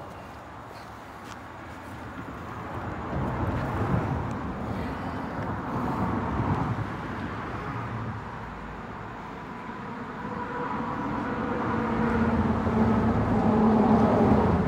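Road traffic passing over a bridge overhead, a steady noise of tyres and engines, with a vehicle growing louder over the last few seconds.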